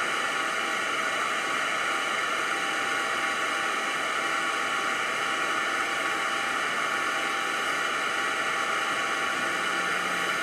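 Steady, even hiss with faint constant tones running through it, unchanging throughout.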